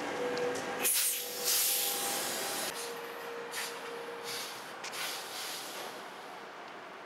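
Tram running on its rails with a steady rumble and faint tone. About a second in the sound changes abruptly to a spell of loud hissing, then a couple of shorter hisses, with a faint steady tone under them.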